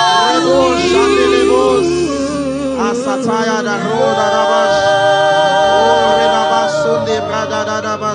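Live worship music: a singer holds long, wavering notes over steady sustained chords and a low bass.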